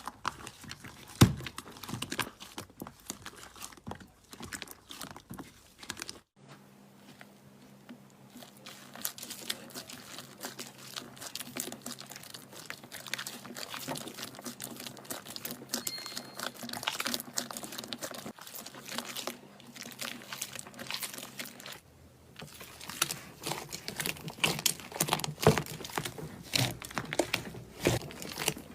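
Slime being squished and worked by hand: a dense run of sticky crackles, clicks and pops. The sound changes abruptly twice, about six and twenty-two seconds in.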